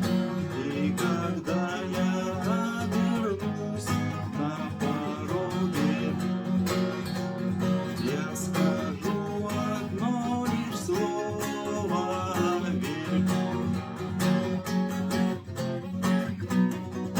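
Acoustic guitar strummed in a steady rhythm, chords ringing continuously, with a higher melody line gliding above them in places.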